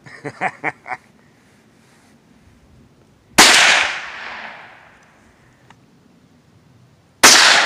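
Two rifle shots about four seconds apart from a scoped rifle fired off a bipod. Each is a sharp crack followed by a rolling echo that fades over a second or so.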